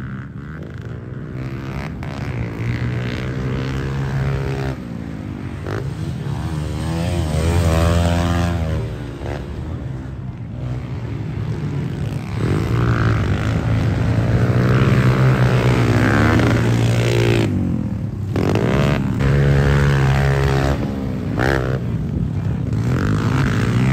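Pit bike engines racing on a dirt track, revving hard and backing off again and again so the pitch rises and falls, with more than one bike heard at once.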